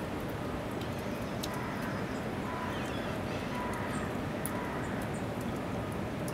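Steady outdoor background rush, with a few faint short calls about two to four seconds in and scattered light ticks.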